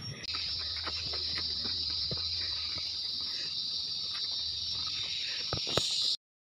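A steady high-pitched drone of forest insects, with footsteps on a dirt trail strewn with dry leaves. Both cut off suddenly near the end.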